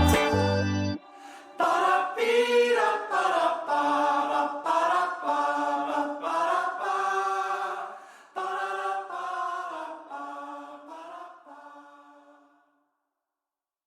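A full band stops abruptly about a second in. Several voices then sing on alone in close harmony, in short sustained phrases that fade out near the end.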